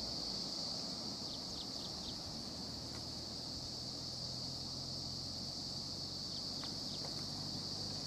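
Steady high-pitched insect chorus in the bush, joined twice by a short run of quick falling chirps, about a second in and again about six seconds in.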